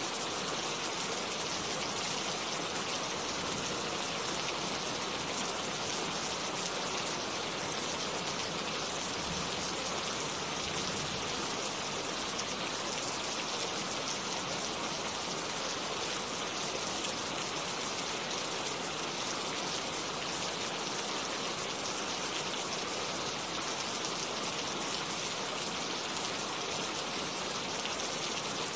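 Steady rain falling, an even hiss of countless drops with no thunder and no music.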